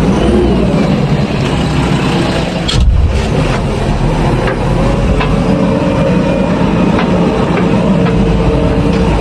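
Diesel engine of heavy construction machinery running steadily, with an abrupt change in the sound about three seconds in.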